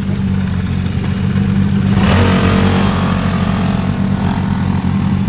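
Small scooter engine running and revving up about two seconds in as it strains to tow a drift car on a strap, over a steady engine drone.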